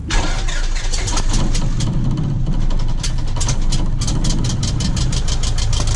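Cessna 172's piston engine and propeller running steadily at low power on the ground, heard from outside the cabin close to the engine, with rapid irregular ticks over a low rumble.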